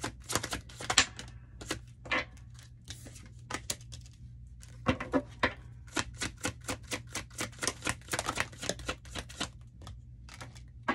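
Tarot cards being shuffled by hand: a run of quick, light clicks and slaps in irregular flurries, busiest in the second half, with a card laid down on a wooden table.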